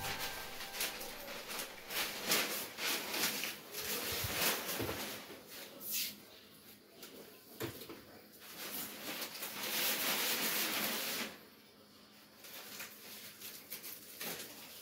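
Aluminium kitchen cabinet doors being handled, with scattered faint clicks and knocks as they swing and shut. A steady hiss runs for about two seconds past the middle.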